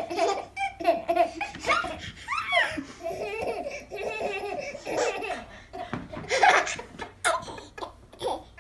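Baby laughing in repeated bursts, with a high squeal that rises and falls a little after two seconds in.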